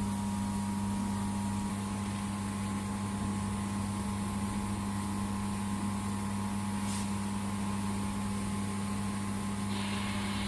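Laser welding machine running with a steady electrical hum and low mains drone; a single faint tick about seven seconds in.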